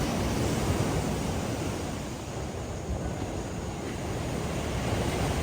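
Sea surf washing steadily with wind buffeting the microphone; the noise dips a little in the middle and swells again near the end.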